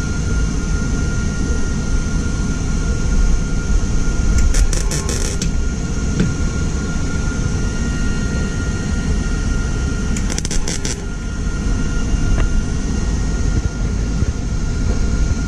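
MIG welder arc sizzling steadily as a patch is welded into sheet-metal body panel.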